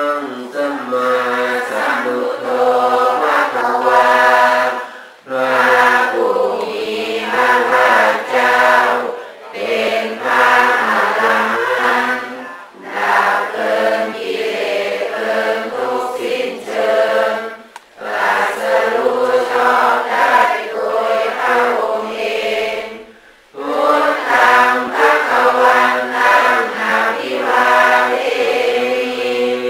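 Male voices chanting together without instruments, in phrases of a few seconds broken by short pauses.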